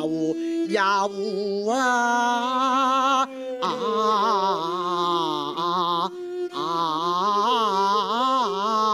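Male Cantonese opera (yueju) singing: long, drawn-out held notes with a wavering vibrato, with two short breaks for breath. It is accompanied by a bowed Chinese two-string fiddle and a plucked round-bodied Chinese lute.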